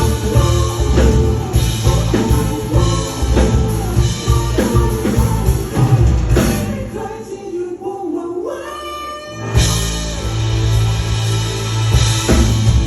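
Live full band (drum kit, bass and guitars) with a lead vocalist singing a Thai pop-rock song. About seven seconds in, the bass and drums drop out for a sparser, quieter passage, and the full band comes back in about two seconds later.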